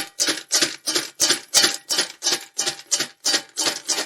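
Spoon stirring and tossing crisp fried sago pearls, peanuts and potato shreds in a vessel: a dry, rustling scrape in even strokes, about three a second, stopping near the end.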